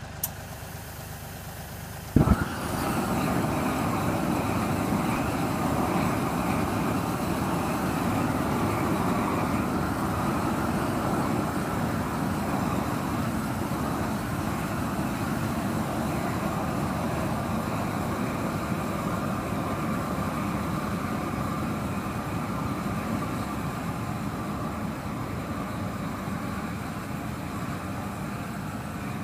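Tractor engine running with the propane burners of a tractor-mounted flame weeder lit. A sudden loud pop about two seconds in, after which a louder steady rushing noise runs on and slowly fades as the tractor drives away.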